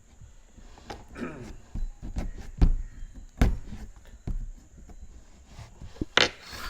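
Packaging being handled for an unboxing: a series of knocks and thumps, the loudest two about a second apart, then a short harsh rustle near the end.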